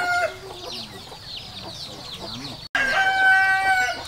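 Rooster crowing: a long held crow ending just after the start and another long held crow about three seconds in. Between them, quick high falling chirps.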